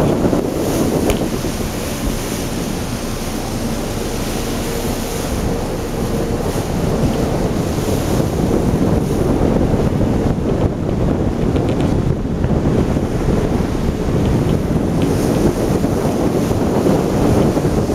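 Wind buffeting the microphone: a loud, rushing noise that swells and eases a little without letting up.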